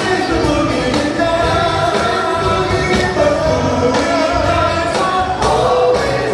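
Live soul music: a band playing with singing over it.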